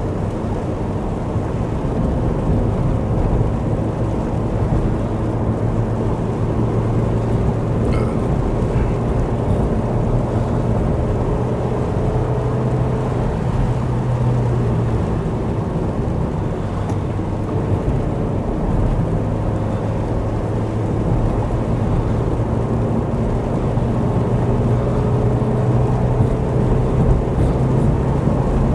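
Vauxhall Corsa driving along at a steady cruise, its engine a constant low drone, mixed with tyre noise from the wet road.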